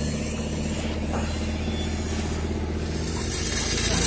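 A steady low mechanical hum, with a crackling hiss building near the end as a MIG welding arc starts up.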